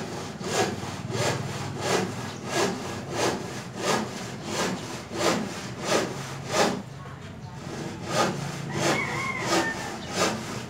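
Rhythmic back-and-forth scraping strokes, about three every two seconds, with a short break about seven seconds in.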